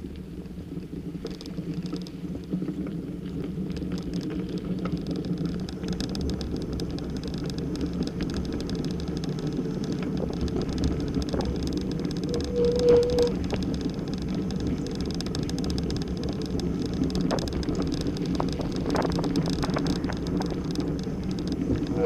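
Dog scooter rolling fast over a dirt and leaf forest path behind two Siberian huskies: a steady rumble from the wheels and frame, with scattered small knocks and rattles and one brief high squeal about halfway through.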